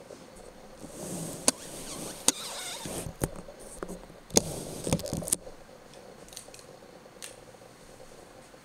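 Handling noise on the camera: half a dozen sharp clicks mixed with rustling between about one and five and a half seconds in, then quiet room tone.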